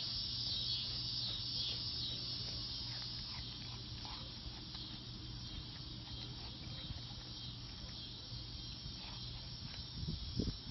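Steady high-pitched chorus of insects, with faint short crunching ticks of a wallaby chewing pear slices, and a louder low bump just before the end.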